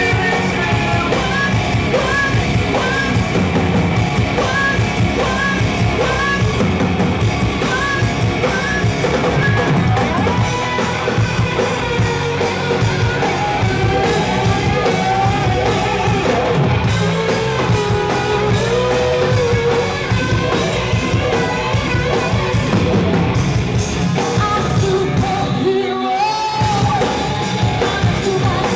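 Rock band playing with a singer, electric guitar and drums, with a short break in the music near the end.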